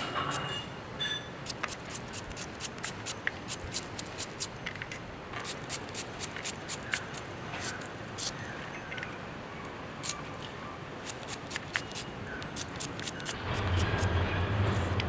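Shallots being sliced by hand with a knife drawn against the thumb: crisp, sharp clicks at an irregular pace of a few a second. A low hum comes in near the end.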